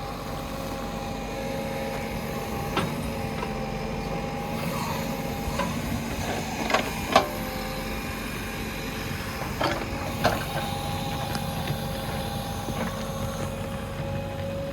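JCB 3DX backhoe loader's diesel engine running steadily with a held whine while digging, broken by several sharp knocks, the loudest about halfway through.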